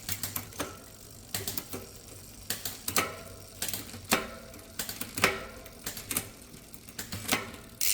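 Bicycle drivetrain being shifted through the gears as the cranks turn: the rear derailleur moves the chain across the cassette cogs with a run of sharp clicks, about two a second, some ringing briefly. The changes land cleanly, a sign that the cable tension is now set right.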